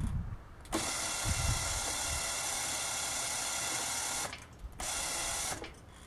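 Electric winch motor whining steadily as it drags a heavy log onto the sawmill bed. It stops about four seconds in, runs again for a moment near the end, and some low wooden knocks are heard as the log shifts.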